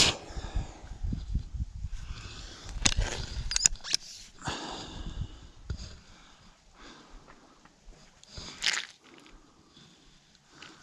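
Rustling, crunching handling noise with a sharp click at the start, a few smaller clicks about three seconds in, and a short burst near the end.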